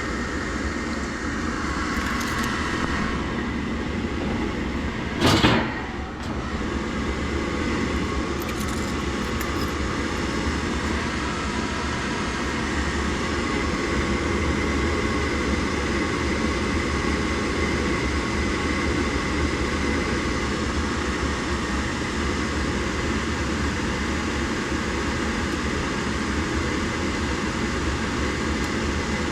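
Gas furnace draft inducer motor running steadily at start-up, pulling the draft that the new pressure switch must sense before the burners may light. A single sharp knock about five seconds in.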